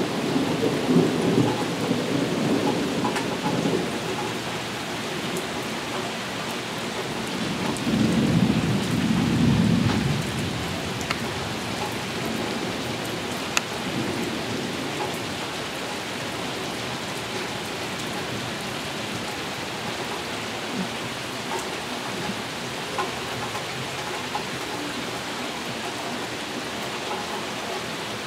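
Thunderstorm: heavy rain falling steadily on a patio, lawn and swimming pool, with thunder rumbling through the first few seconds and again for about two seconds roughly a third of the way in.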